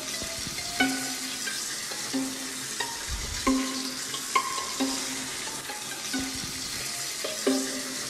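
Steady hiss of water spraying from a hand-held shower head onto a kitten, with light background music of short plucked notes sounding about once or twice a second over it.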